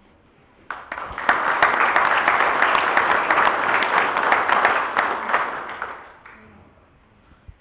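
Audience applauding: a round of clapping that starts about a second in, holds, and fades out by about six seconds.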